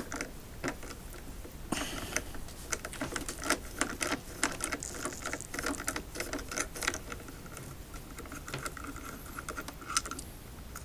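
Hands working on an electric unicycle being taken apart: irregular clicks, taps and light scraping as parts of its casing are loosened and handled.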